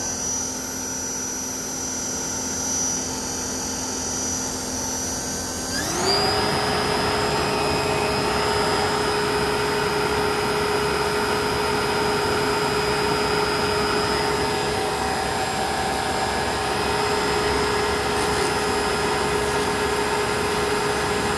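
Delco Remy 22SI car alternator running as a brushless three-phase motor on an RC-car sensorless speed controller, giving a steady electric whine. About six seconds in the whine rises quickly in pitch as the motor speeds up, then holds steady at about 4,200 RPM.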